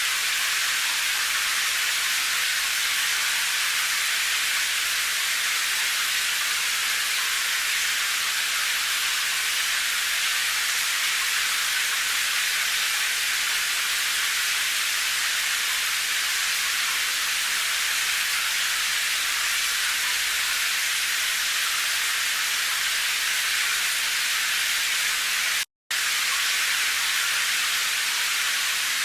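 Steady, even rain hiss with no individual drops standing out, high in pitch with little low rumble. A split-second dropout to silence breaks it once near the end.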